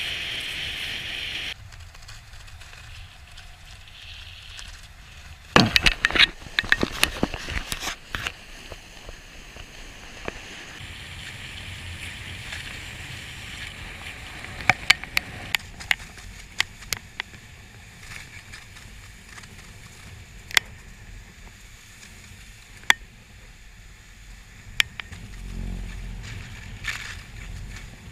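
Snowkite ride across a snowy frozen lake: runners sliding over the snow, with wind on the camera microphone. Scattered sharp clicks and knocks run throughout, in a dense cluster about six seconds in, and a low wind rumble rises near the end.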